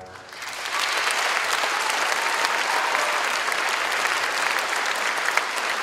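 Opera-house audience applauding at the end of an act, the clapping swelling up over the first second and then holding steady and dense.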